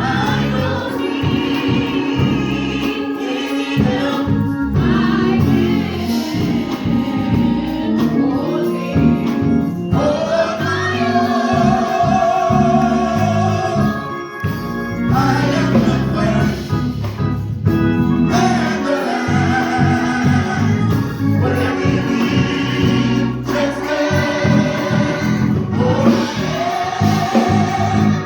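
Gospel choir singing in several voices with instrumental accompaniment.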